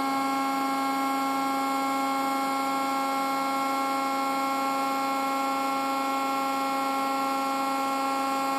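Hydraulic press power unit (electric motor and pump) running with a steady hum of several held tones while the hydraulic ram retracts.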